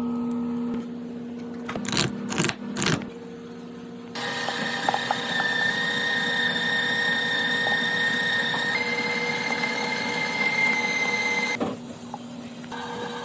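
A small electric motor running with a steady whine, broken by abrupt cuts into separate takes. Its pitch steps up about nine seconds in, and a few sharp clatters come about two to three seconds in.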